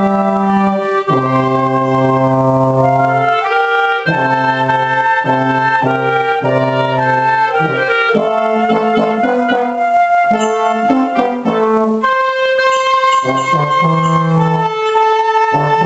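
Small amateur wind ensemble playing a piece together, with euphonium and oboe among the instruments, in held notes over a low brass bass line.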